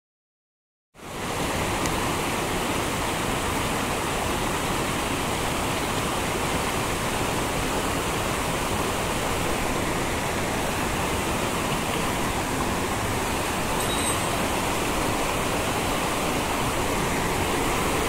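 Mountain stream rushing steadily, an even hiss of running water that cuts in abruptly about a second in after silence.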